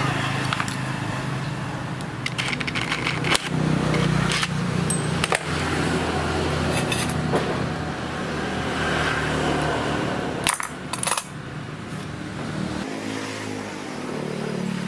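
Small metal screws and parts of a chainsaw carburetor clinking against a stainless steel bowl and each other as the carburetor is taken apart. The clicks come scattered, with the sharpest pair about ten and a half seconds in, over a steady low hum.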